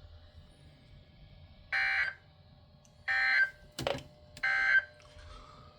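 Three short bursts of EAS/SAME digital data, the end-of-message code closing a NOAA Weather Radio Required Weekly Test, about a second apart, with a sharp click between the second and third.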